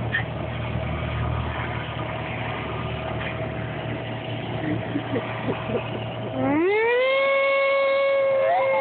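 Noon civil defense siren sounding as a steady distant tone. About two thirds of the way in, a cairn terrier starts a long howl along with it, sliding quickly up in pitch and then holding nearly level.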